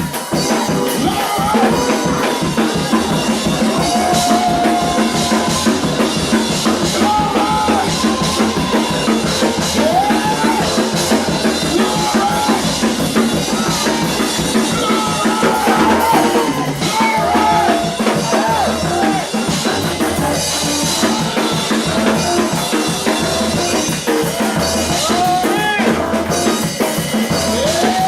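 Live church praise music: a band with a drum kit playing loud and steady, with pitched parts sliding above the beat.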